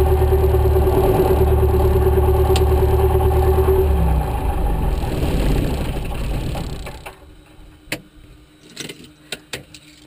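Single-engine light aircraft's engine running steadily, then shut down about four seconds in. It runs down over a few seconds and goes quiet about seven seconds in as the propeller stops. A few sharp clicks and knocks follow.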